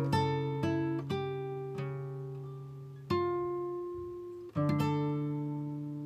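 Background music: acoustic guitar, plucked notes and chords that ring out and fade, struck about every second or two.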